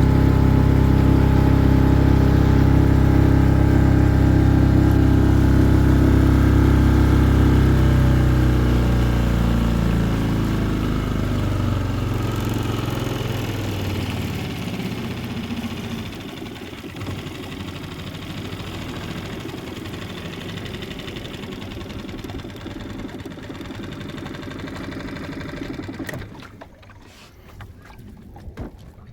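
A boat's engine running at a steady pitch, then fading away over several seconds. It leaves the wash of water and wind, which drops off near the end.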